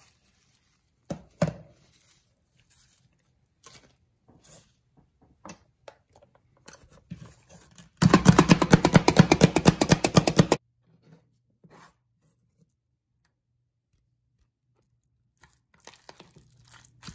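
Hand-operated food chopper chopping cilantro: a rapid, even rattle of many strokes lasting about two and a half seconds, a little past halfway through. Light clicks and taps of handling come before and after it.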